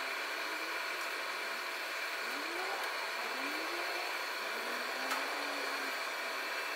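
Steady machinery whir from the SLJ900/32 mobile bridge-erecting machine, with a high whine running through it and a few short rising tones in the lower range, while its front support is being moved. A single sharp click comes about five seconds in.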